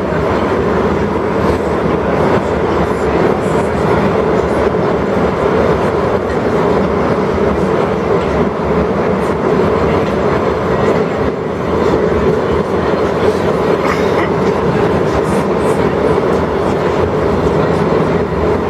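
Metro train running through a tunnel, heard from inside the passenger car: a loud, steady rumble of wheels on rail with a constant hum and faint rail clicks.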